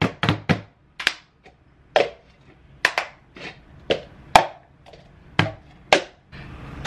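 Hand claps and plastic cups being slapped, lifted and knocked down on a wooden table in a clapping-and-cup rhythm routine. It comes as a quick, uneven run of sharp claps and knocks, the loudest about four and a half seconds in.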